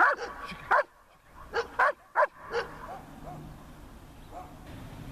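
Large dog barking five times in quick succession, sharp single barks over about two and a half seconds, followed by a few faint short calls.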